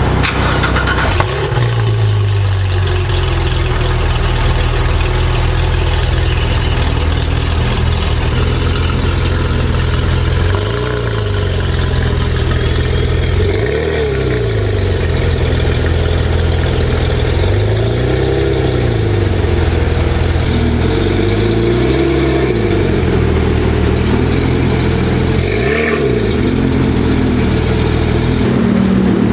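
Straight-piped Porsche 911 GT3 RS's naturally aspirated 4.0-litre flat-six idling loudly and steadily. From about a third of the way in it is blipped about five times, a few seconds apart, each rev rising and falling straight back to idle.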